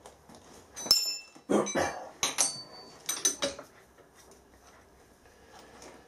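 Sharp metallic clinks and knocks of a steel strap clamp, a spanner and bronze castings being handled on a milling machine's steel table. A cluster of them comes from about one to three and a half seconds in, some ringing briefly.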